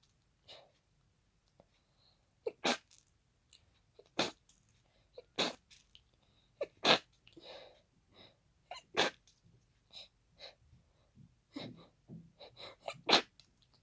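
A person's hay-fever sneezing fit: congested sneezes coming fast, about six loud ones a second or two apart with smaller ones between, and quick breaths in the gaps.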